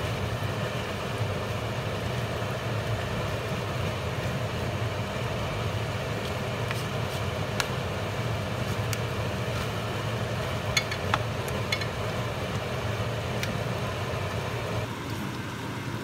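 Seafood red-curry stir-fry bubbling and sizzling in a frying pan over a steady low rumble, with a few light clicks of a plastic spatula against the pan. The sound eases slightly about a second before the end.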